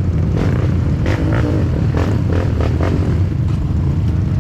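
Dirt bike engine running steadily, with scattered clattering knocks.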